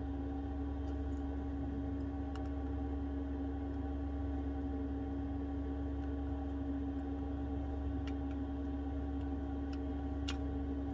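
Steady low hum with a few faint, sharp clicks scattered through it, from small tools handling the small internal parts of an iPhone 12.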